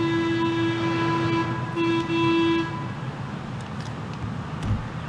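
A horn sounding one steady note in two blasts. The first ends about a second and a half in, and a second, shorter blast follows after a brief gap and stops near the three-second mark. A low rumbling background continues afterwards, with a short low thump near the end.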